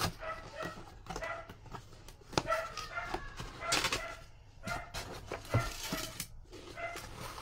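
A dog barking repeatedly in short calls, with rustling and light knocks from a cardboard shipping box being unpacked.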